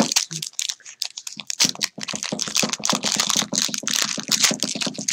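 Foil wrapper of a Yu-Gi-Oh booster pack being torn open and pulled apart by hand: rapid, crisp crackling and crinkling.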